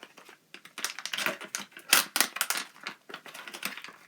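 Packaging being opened and handled by hand: quick, irregular crackles and clicks, busiest about a second to two and a half seconds in.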